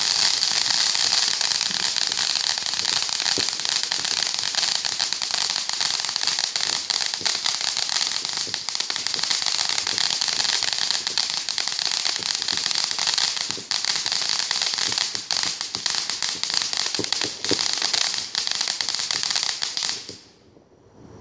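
Fireworks crackling and hissing without a break, a dense spray of tiny pops. The crackle cuts off abruptly near the end.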